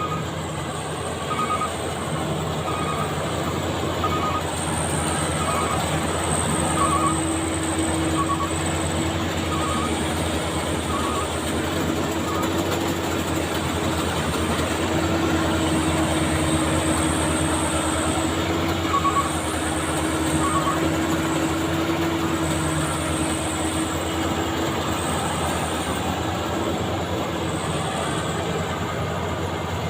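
Maxxi Bimo 102 rice combine harvester running steadily as it cuts rice: a constant mechanical drone with a thin high whine that comes and goes.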